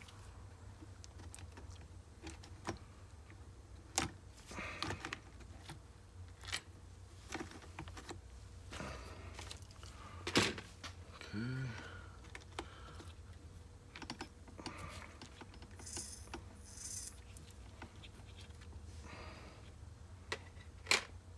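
Scattered light clicks and taps of a screwdriver and small metal parts being handled while an RC car's chassis and brake cam assembly are taken apart. The sharpest click comes about ten seconds in.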